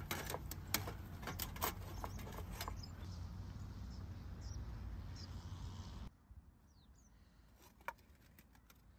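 Light metallic clicks and taps of a folding metal windscreen and mess tin being handled on a small camp stove, over steady outdoor background noise. About six seconds in, the background drops to quieter ambience with a couple of faint high chirps and one more click near the end.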